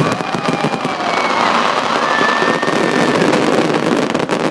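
Fireworks crackling and popping continuously in a dense barrage.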